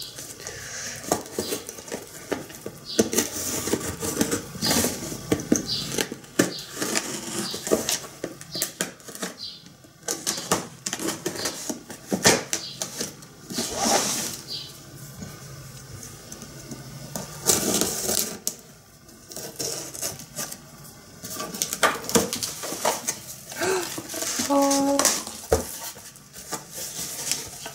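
Cardboard shipping box being opened by hand: packing tape scraped and slit with a pen, ripped off, and the cardboard flaps pulled open and handled. The result is an irregular run of scraping, tearing and rustling noises.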